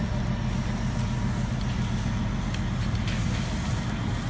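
Fire truck's engine running steadily, a low even drone with a light hiss over it.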